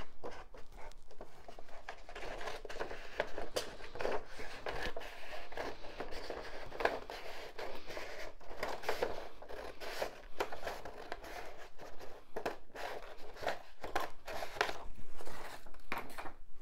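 Large scissors cutting a sheet of drawing paper along a curve: a run of repeated snips with the paper rustling and crinkling as it is turned and handled.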